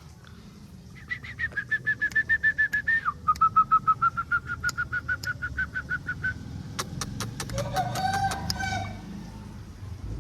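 A fast, high-pitched pulsed chirping, about eight notes a second, runs for about five seconds and drops to a lower pitch partway through. It is followed by an Aseel rooster's short crow, one rising and held call near the end, with sharp clicks over it.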